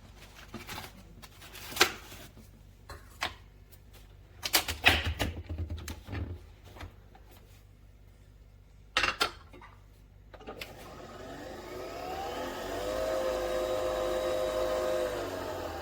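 Several sharp clicks and knocks of the Nespresso Vertuo Next's head and capsule being handled. About ten seconds in, the machine's motor starts spinning the capsule to brew. It makes a rising whine that levels off into a steady two-tone hum, then begins to drop away near the end.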